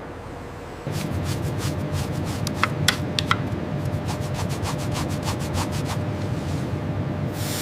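A rapid, even run of mechanical clicks, several a second, over a steady low rumble, starting about a second in.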